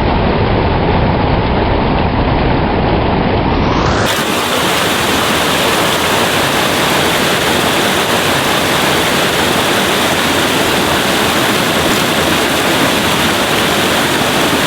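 Loud, steady rush of a creek waterfall heard close up. It sounds muffled for about the first four seconds, then opens out to its full, bright hiss.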